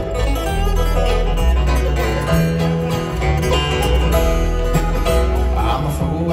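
Bluegrass band playing an instrumental break live, with banjo, acoustic guitar and upright bass, and no singing.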